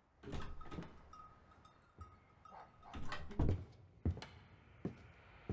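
Several scattered knocks and thumps, the loudest about three and a half seconds in, with a faint steady high tone in the first half.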